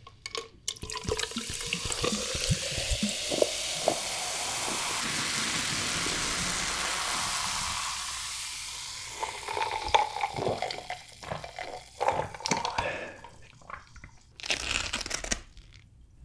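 Coca-Cola poured from a plastic bottle into a glass jar of ice cubes, the pitch of the pour rising as the jar fills. After the pour, the cola fizzes with small crackles and clicks from the ice. A brief noisy burst comes near the end.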